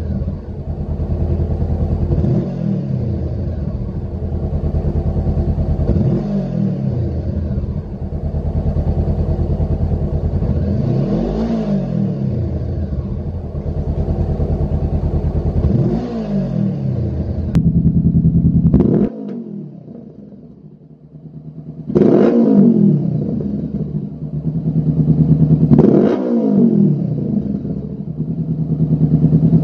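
Honda CBR500R's parallel-twin engine idling and revved in short blips about every four seconds through the stock silencer. After a sudden change and a brief lull, it is heard through a Lextek XP10 full aftermarket exhaust system, with a louder idle and two more rev blips.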